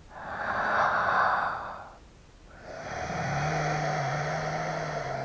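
A man's deep inhale through the mouth, then after a short pause a long, slow exhale out through the left nostril with the right nostril held shut by his thumb: a round of alternate nostril breathing (nadi shodhana pranayama). A low steady hum runs under the exhale.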